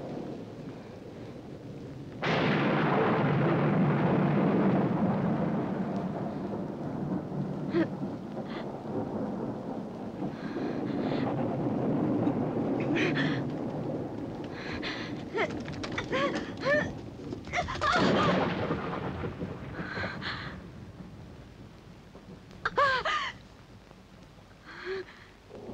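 A thunderclap breaks about two seconds in and rolls on, fading slowly over several seconds, over a steady hiss of rain, as a film soundtrack effect. Several brief high-pitched sounds come through in the second half.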